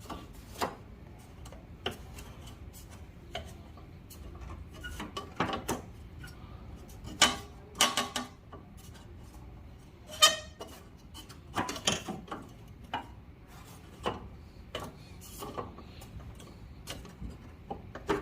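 Irregular metal clinks, taps and rubbing as a sheet-metal cooling plate is handled and fitted against a car's front end, a few of the knocks ringing briefly.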